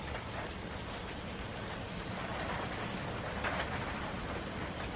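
Beef steaks sizzling in a frying pan, a steady hiss of frying fat.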